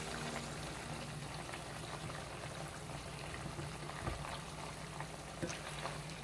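Chicken skins boiling in liquid in a steel saucepan while a wooden spoon stirs them, with a couple of sharp knocks of the spoon against the pan about four and five and a half seconds in.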